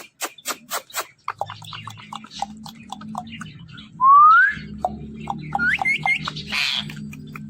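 Ring-necked parakeet making a run of sharp clicks and short chirps, then a loud rising whistle about four seconds in. More chirps and short upward whistles follow, with a harsh squawk near the end.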